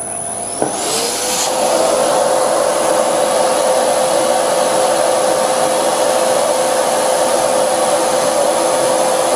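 Lathe cutting a spinning cast iron brake disc with a carbide insert: after a click, a whine rises within the first second and settles into a steady ringing tone over a broad hiss. The ringing is chatter from the cast iron disc vibrating against the tool.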